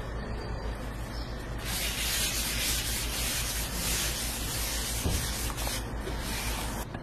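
A folded towel rubbed over the oiled surface of a hot crepe griddle, a rough wiping hiss that starts about two seconds in, breaks off briefly near the end and then stops.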